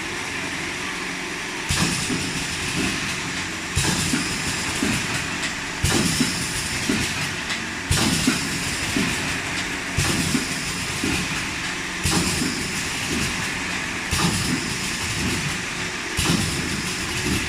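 VPD250-B automatic four-side sealing wet wipes packing machine running again after its safety-door alarm was cleared. A steady hum is joined, a couple of seconds in, by a working cycle that repeats about every two seconds: each cycle starts with a sharp clack and a rush of hiss, followed by several quicker mechanical strokes.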